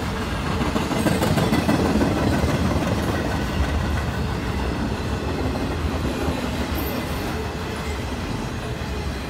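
Intermodal freight train's well cars, loaded with highway trailers and containers, rolling past close by: a steady rumble of steel wheels on the rails with some clickety-clack. It swells slightly about a second in.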